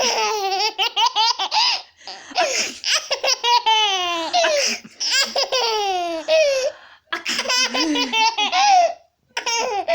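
Baby laughing hard in about five long bouts of rapid, high-pitched laughs, the pitch falling through each bout, with short breaths between them.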